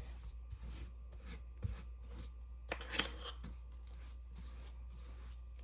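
Soft rubbing and scraping strokes of hands and a utensil working dough and adding a filling, about two or three irregular strokes a second, the loudest a little before halfway, over a steady low hum.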